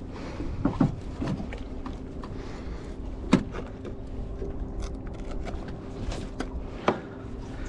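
Scattered sharp knocks and clunks on a small aluminium boat as a flathead and the landing net are handled onto a measuring mat, the loudest knocks about three seconds in and near the end, over a steady low hum.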